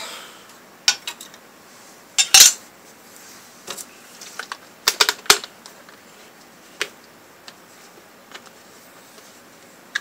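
A small metal snus tin being handled and set down in a cast iron skillet: light metallic clicks and knocks. The loudest pair comes about two and a half seconds in and a quick cluster about five seconds in, with scattered fainter ticks after.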